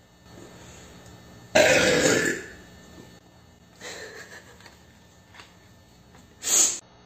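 A woman lets out a loud, drawn-out burp about a second and a half in, lasting nearly a second. A softer throat sound follows, then a short sharp sound near the end.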